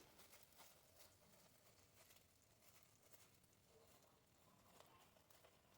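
Near silence: room tone with a few faint, light ticks and taps.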